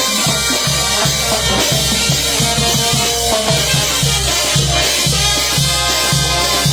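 Peruvian banda (brass band) playing live in an instrumental passage, sustained horn lines over a steady bass drum beat and drum kit.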